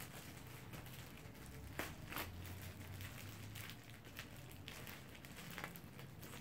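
Faint crinkling and crackling of loose plastic wrapping on a parcel as hands handle it and cut it open with scissors, with a couple of sharper clicks about two seconds in.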